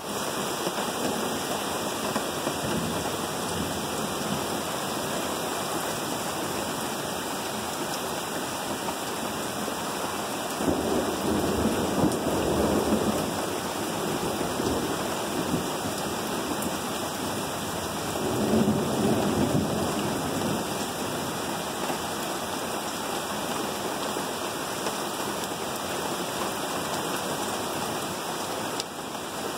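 Heavy thunderstorm rain falling steadily, heard from inside a camper. Thunder rumbles twice, about a third of the way in and again past halfway, each roll lasting a few seconds.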